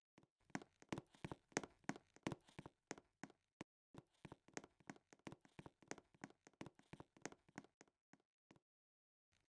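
Faint, quick clicks or taps, several a second in an uneven rhythm, stopping about eight and a half seconds in.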